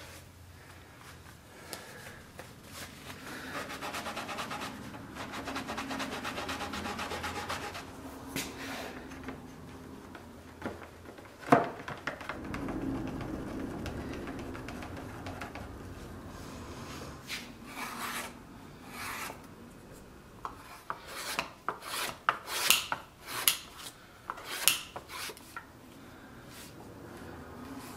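Hand rubbing and scraping on a tooled leather holster piece. A few seconds in comes a stretch of quick, even rubbing strokes, then one sharp click about halfway. Near the end there is a run of short, sharp scraping strokes.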